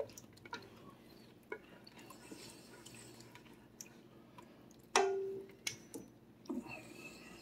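A metal spoon stirring thick creamy soup in a stainless steel pot: soft wet squelching and light scrapes, with one sharp clank against the pot about five seconds in that rings briefly.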